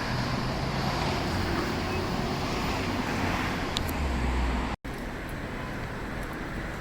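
City street traffic: a steady hum of vehicles with a low engine drone underneath. The sound cuts out for an instant about five seconds in and returns a little quieter.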